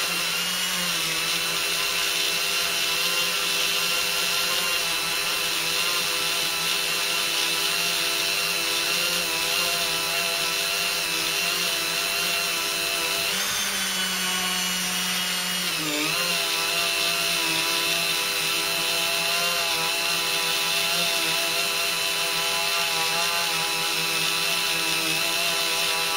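Flexible-shaft rotary tool running steadily, its felt polishing bob with polishing powder buffing a glass paperweight, a steady whine. About thirteen seconds in, the pitch rises for a couple of seconds, then falls back.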